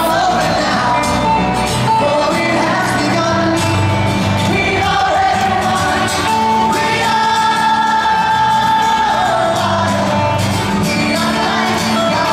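Live pop-rock song played on two acoustic guitars with a lead voice singing long held notes, recorded from out in the audience of a large venue.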